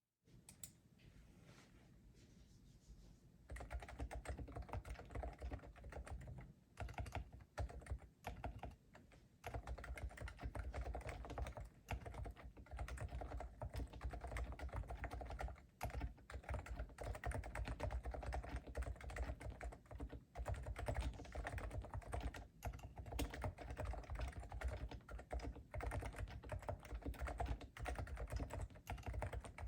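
Typing on a Leopold FC660C Topre keyboard with silenced 45 g electro-capacitive rubber-dome switches. The keystrokes are soft and low and come densely. They are faint for the first few seconds, then settle into steady fast typing.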